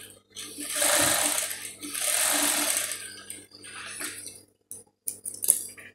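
Sewing machine stitching in two short runs, a little under three seconds in all, followed by quieter handling sounds and a sharp click near the end.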